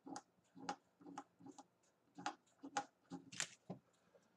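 Pencil flicking short strokes on paper: a faint, irregular run of quick scratches, two to three a second.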